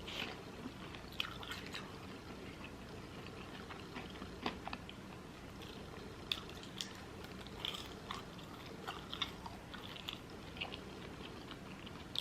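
A person chewing food close to the microphone: soft, scattered mouth clicks and small crunches every second or so.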